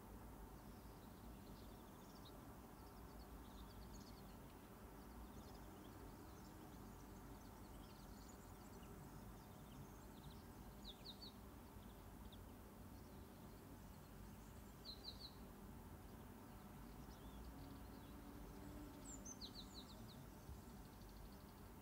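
Near silence: quiet room tone with faint bird chirps now and then, each a quick cluster of a few short high notes.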